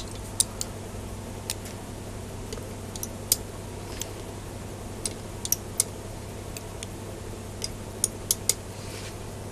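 Sparse, light metallic clicks of 9.5 mm (3/8-inch) steel ball bearings and tweezers as the balls are picked up and set one by one into the greased bearing race of an Emotator rotator's axle, over a faint steady low hum. About a dozen clicks come at irregular intervals, a few in quick clusters.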